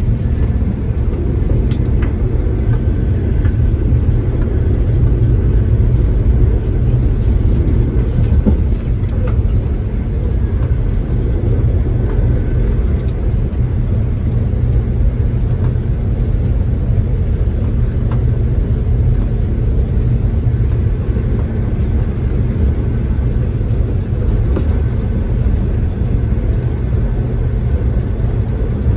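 V/Line diesel train running at speed, heard from inside the passenger carriage: a steady low rumble of wheels on rail and running gear, with a few faint clicks.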